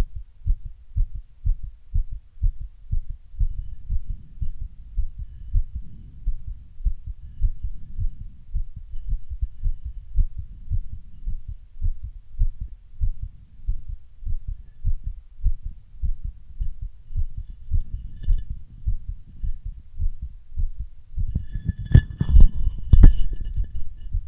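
A woman's heartbeat, beating fast after a run, heard close up as a steady rhythm of low thumps. A few loud bumps and scrapes break in near the end.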